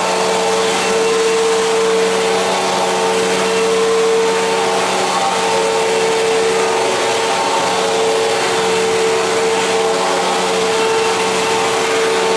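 A 1999 Fantom Fury upright bagless vacuum cleaner running steadily, its motor hum swelling and fading every few seconds. This uneven sound is the abnormal noise its owner cannot place, which comes and goes.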